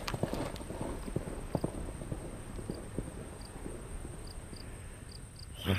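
Horses' hooves thudding on grassy ground as they run, dense at first and thinning out over the last few seconds, with a short louder rush of sound just before the end.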